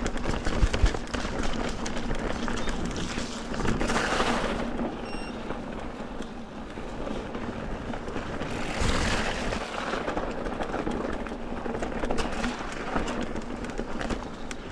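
Mountain bike riding over a rough trail: rolling tyre and rattle noise with wind on the microphone, swelling louder about 4 seconds and 9 seconds in.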